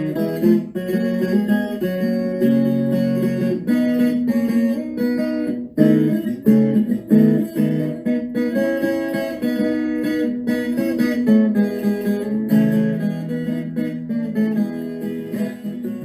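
Acoustic guitar music, strummed and plucked, fading out near the end.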